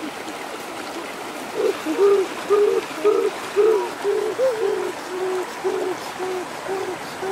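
A bird's low hooting call, repeated about twice a second from about a second and a half in, over the steady rush of a stream.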